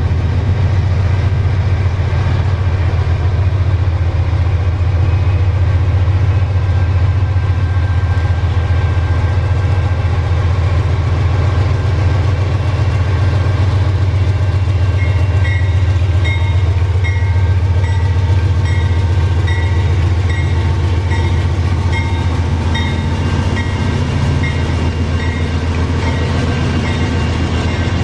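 GE AC44i diesel-electric locomotive hauling a double-stack container train past at close range: a loud, steady, deep engine rumble as it approaches and goes by, with the container wagons rolling past near the end. From about halfway a faint high ringing pulses about once a second.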